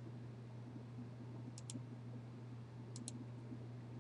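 Computer mouse clicked twice, about 1.4 s apart; each click is a quick double tick of press and release. A steady low hum runs underneath.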